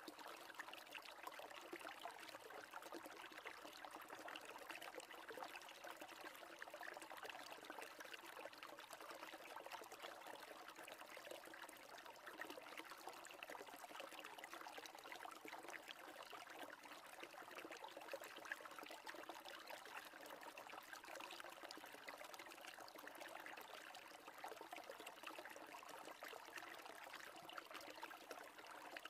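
Near silence with a faint, steady rushing noise and no distinct events.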